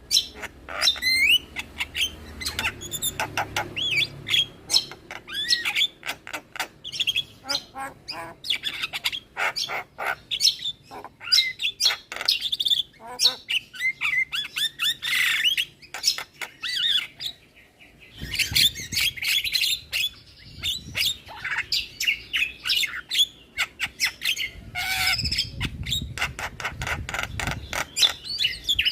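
Javan myna singing a fast, varied stream of chirps, gliding whistles, clicks and harsh squawks, with a brief pause about 17 seconds in.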